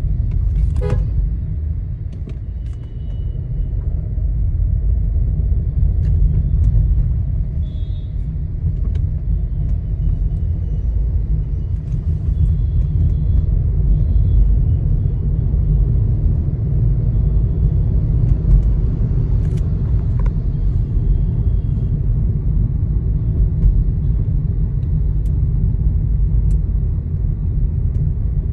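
Inside the cabin of a moving Skoda Kushaq: steady low road and drive rumble, with scattered faint clicks and ticks of loose interior trim rattling, and a short squeak about a second in. The rattles point to poorly fitting dashboard, centre console and door panels.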